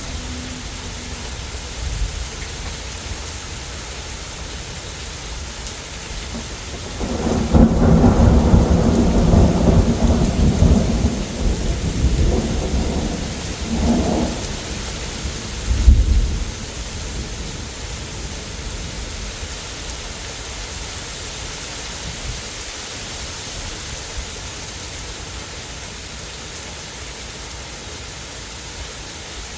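Heavy, steady rain throughout. About seven seconds in, a long roll of thunder rumbles for around seven seconds, and a short, sharp thunder boom follows a couple of seconds later before the rain continues alone.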